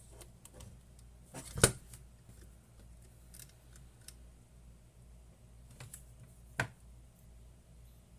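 Hands working on the instrument's wiring and small parts: scattered light clicks, with two sharp clicks, the louder about a second and a half in and another about six and a half seconds in.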